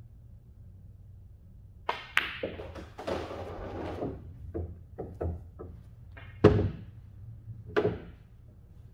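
Pool cue striking the cue ball, then billiard balls clacking into each other, rolling and knocking off the cushions in a quick run of sharp clicks. The loudest knock comes about six and a half seconds in, with another near eight seconds.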